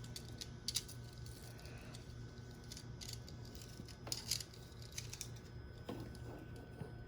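Smith Corona electronic memory typewriter switched on, with a steady low hum and scattered light clicks from its keys and mechanism.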